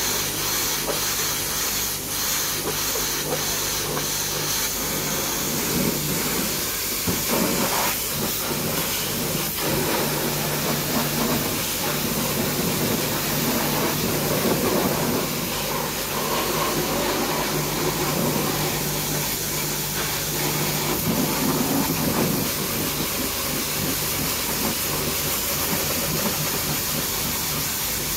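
High-pressure washer jet spraying water in a steady hiss, beating on a rubber floor mat and then on a tyre and wheel, with the pressure pump's low hum underneath.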